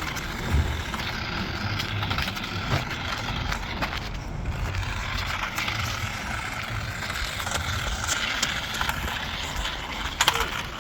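Small electric motor of a remote-control toy car running with a steady, wavering whine, and a few sharp clicks near the end.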